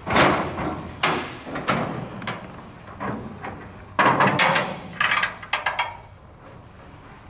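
Clunks and knocks from the hood of a 1956 Studebaker pickup being unlatched and raised: a string of sharp knocks about a second apart, bunching closer together between four and six seconds in.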